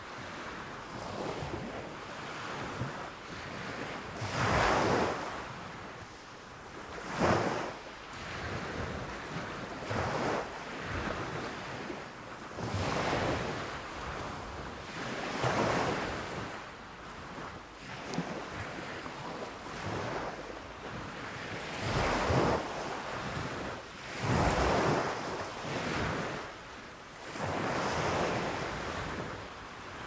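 Small waves breaking and washing up a sandy beach, the surf swelling and falling away every few seconds.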